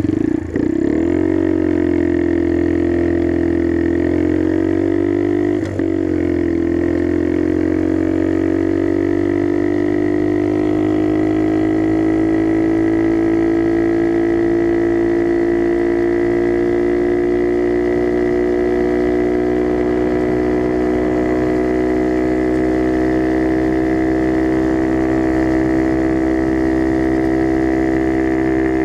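Skyteam Dax mini bike's single-cylinder four-stroke engine, breathing through an aftermarket carbon exhaust, running under way on a ride. Its note breaks briefly about half a second in and again near six seconds, then holds steady and climbs slowly in pitch.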